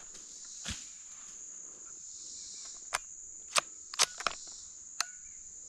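Insects droning steadily at a high pitch, broken by about six sharp clicks or snaps, the loudest two close together near the middle.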